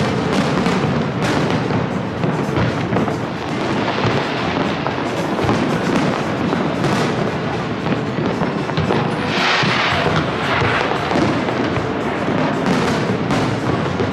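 Aerial fireworks display: shells bursting in quick, overlapping succession, a dense run of bangs and crackles, with a brief louder hiss about two-thirds of the way through.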